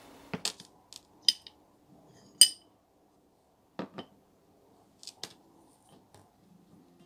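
Metal clicks and clinks of an antique cast-iron sad iron with a detachable wooden handle, as it is set down on a wooden tabletop and its handle latch is worked off the base. About half a dozen separate knocks, the loudest a short ringing clink about two and a half seconds in, with a duller knock against the table near four seconds.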